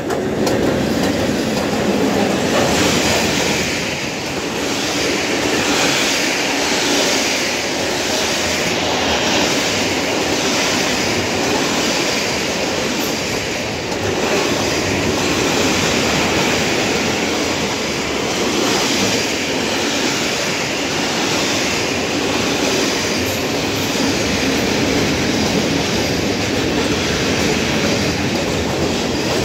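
Freight train hauled by two class 86 electric locomotives passing at speed close by. The locomotives go by first, then a long string of loaded flat wagons and open wagons. It is a loud, steady rolling rumble with a rhythmic clickety-clack of wheels over the rail joints.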